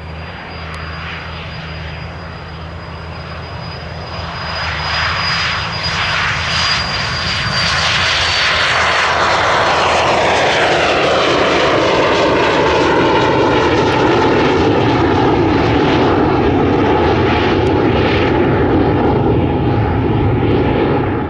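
Pilatus PC-24 business jet's twin Williams FJ44 turbofans at takeoff thrust: a high whine over a deep rumble, growing louder over the first several seconds as the jet rolls past and lifts off. About ten seconds in, the pitch falls as it passes, leaving steady loud engine noise as it climbs away.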